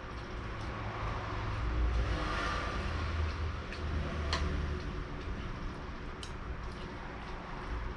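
Fork and spoon clicking against a plate while eating, a few sharp clinks, the clearest about four seconds in, over a low steady hum.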